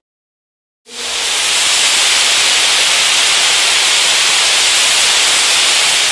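Nitrogen gas rushing out of a standard ceiling discharge nozzle of an inert-gas fire suppression system. The loud, steady hiss starts abruptly about a second in. A nozzle like this measures roughly 130 decibels, a level that can affect hard disks.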